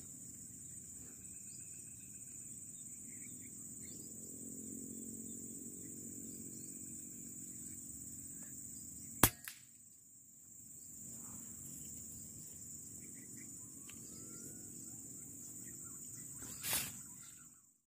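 Air rifle fired once, a sharp crack about nine seconds in with a faint knock just after it, and a second, quieter crack near the end. Steady high-pitched insect chirring runs underneath.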